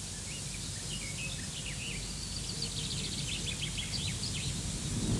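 Small birds chirping and twittering in short quick notes, with a rapid run of chirps about three to four seconds in, over a steady low background rumble.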